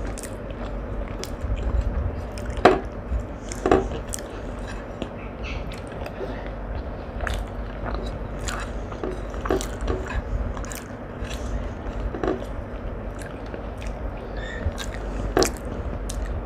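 A person eating and chewing food close to the microphone, with many small wet clicks and a few sharper clicks over a steady low hum.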